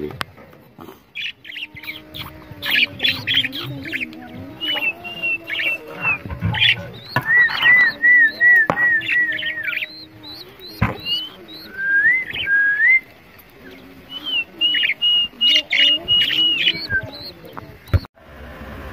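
Caged birds chirping and calling: many quick high chirps and short runs of repeated whistled notes, over a low wavering tone, with a few sharp knocks.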